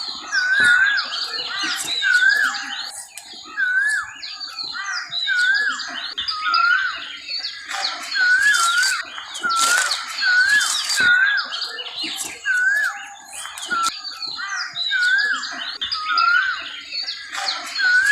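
Chorus of many birds chirping, with one bird repeating a short, wavy whistled note about once a second throughout.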